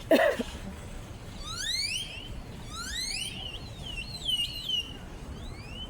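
Great-tailed grackles calling: a run of whistles that sweep upward in pitch, then a wavering, warbling whistle about four seconds in. A brief, louder falling sound comes right at the start.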